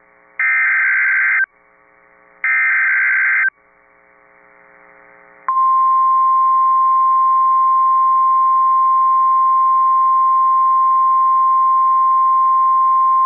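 NOAA Weather Radio Emergency Alert System header: two one-second bursts of SAME digital data warble, a second apart. About five seconds in, the steady 1050 Hz warning alarm tone starts and holds, signalling that a warning follows, here a tornado warning.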